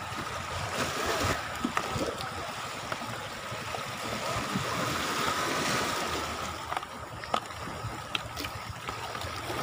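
Sea water washing and surging against a rocky shoreline, a steady rushing wash, with a few light clicks scattered through it.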